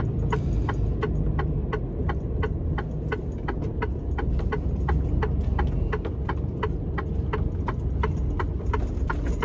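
Turn-signal indicator ticking steadily, about three ticks a second, inside a Mercedes-Benz truck cab, over the low rumble of the diesel engine at slow speed.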